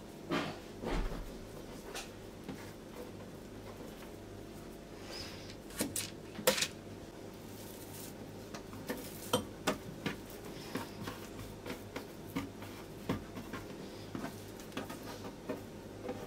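Scattered light taps and knocks of hands twisting and pressing strips of soft tahini dough on a wooden board. The loudest come in a short cluster about six seconds in, over a faint steady hum.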